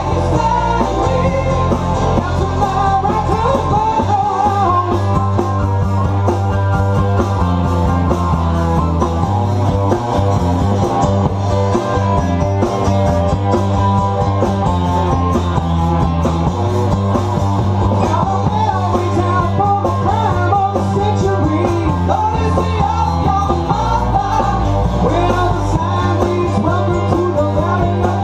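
Live rock band playing electric guitars, bass and drums, with a singer over the top.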